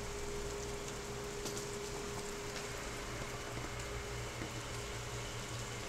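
Rain falling steadily, an even hiss with a few faint drip ticks.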